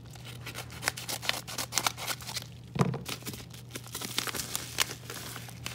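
A yellow padded paper mailer being opened by hand, its paper crackling and tearing in a quick irregular run of sharp crinkles, with a duller handling thump about halfway through.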